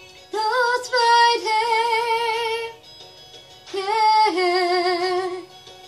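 A woman singing two long held notes with wide vibrato, each about two seconds long, the second phrase starting lower and then dropping in pitch.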